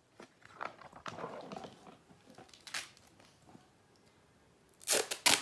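Crinkling and rustling of paper craft materials being handled, then a couple of loud, sharp rips about five seconds in.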